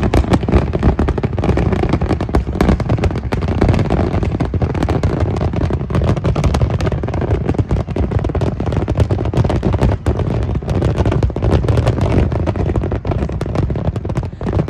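Fireworks going off in rapid, continuous succession: dense crackling and many overlapping bangs with no break, as in a large display.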